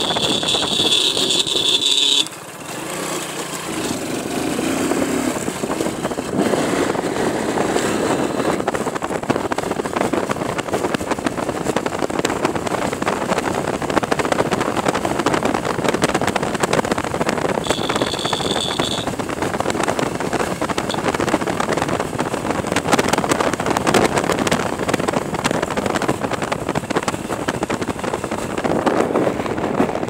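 Motorcycle riding at speed, its engine under a steady rush of wind on the microphone. A high steady tone sounds for about two seconds at the start and again briefly about eighteen seconds in.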